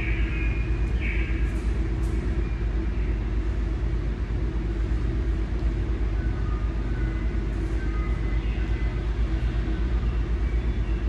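A steady low rumble, with faint short high tones coming and going over it.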